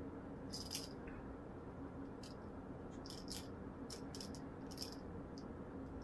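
Light clicks and small rattles of little metal tool parts handled by hand, as a wheel is changed and its screw is fitted on a rotary tool's mandrel. About a dozen scattered clicks come over a faint steady hum.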